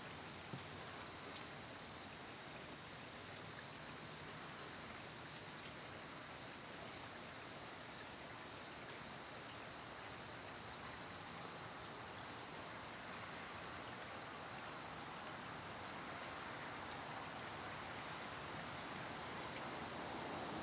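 Steady rain falling, with scattered individual drops ticking on a surface, slowly growing louder toward the end.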